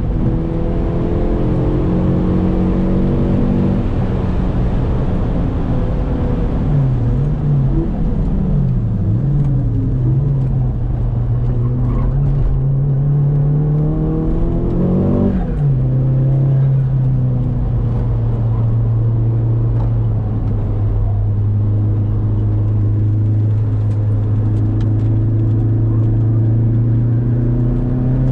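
Saab 9-3 Aero's turbocharged four-cylinder engine heard from inside the cabin, driven hard on track. The revs drop at the start, rise and fall unevenly for a few seconds, then climb to a peak about fifteen seconds in and fall sharply, as at a gear change. After that the engine holds a fairly steady note, rising slowly, and climbs again near the end.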